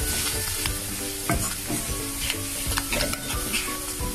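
Beef fry sizzling steadily in a non-stick pan while a wooden spatula stirs it, scraping and knocking against the pan a few times.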